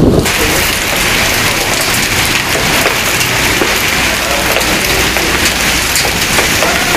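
Hailstones mixed with rain pattering steadily and densely on the street, pavement and car roofs.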